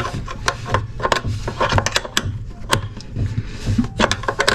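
Paper towels rustling and a run of small irregular clicks and taps as hands work around the base of a toilet.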